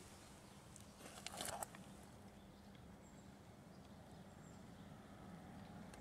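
Near silence: faint outdoor quiet with a steady low hum, and one brief crunching rustle about a second in.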